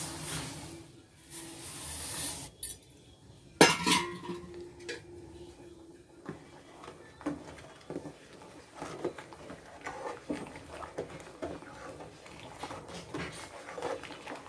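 A steel spoon clinking and scraping against a steel pan of thick, boiling rice kheer as it is stirred, in many small irregular strikes, with one sharp, loud clink of steel on steel about three and a half seconds in. Near the start, a soft hiss as sugar pours into the pan.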